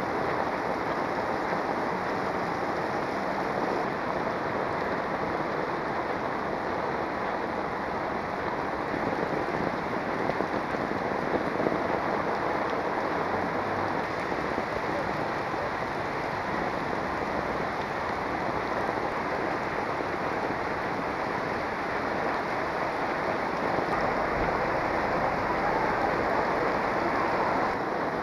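Heavy rain pouring steadily onto a wet paved street, as an even, unbroken rush that swells slightly near the end.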